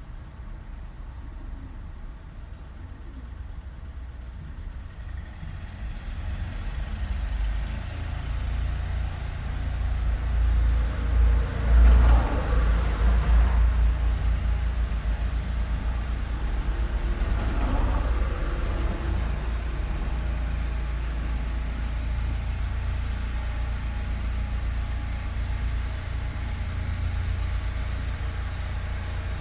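Street traffic: a steady low rumble of road vehicle engines, with a vehicle passing close about twelve seconds in and another about six seconds later.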